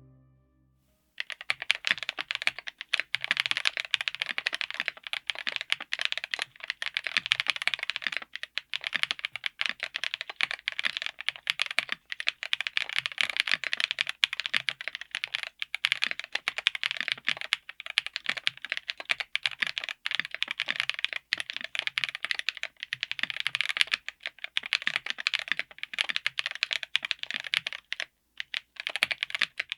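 Fast, continuous typing on a mechanical keyboard fitted with Kailh Lunar linear switches (cross-stem BOX design) in a Tofu60 aluminium case with an FR4 plate. Each keystroke bottoms out with a clack, and the strokes run in a dense stream that starts about a second in, with a brief pause near the end.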